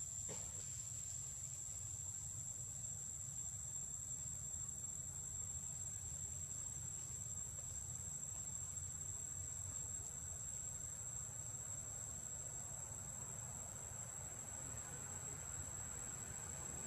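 Insects chirring in one steady, high-pitched drone, over a faint low rumble.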